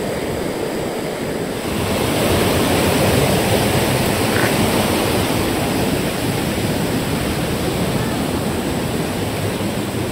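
Steady rush of a fast river running high over boulders, with a waterfall upstream; the rush grows a little fuller and louder about two seconds in.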